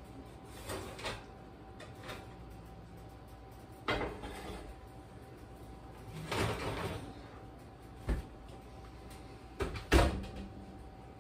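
Metal baking pans and the oven rack clattering as a pie and a bundt cake are lifted out of a gas oven: a handful of separate knocks and scrapes, the loudest a sharp knock near the end as the oven door is shut.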